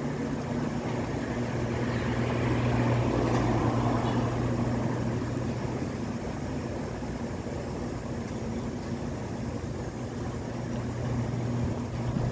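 Steady low mechanical hum, like a running engine or motor, growing louder for a couple of seconds about two seconds in and then settling back.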